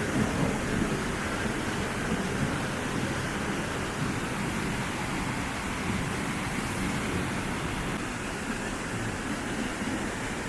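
Steady rush of a mountain river's water running over rocks, an even noise that holds at one level.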